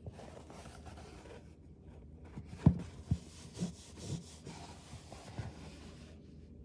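Hands rubbing and handling a soft plush fabric playhouse, a steady light rustle of fabric. About halfway through come several soft thumps, the first the loudest.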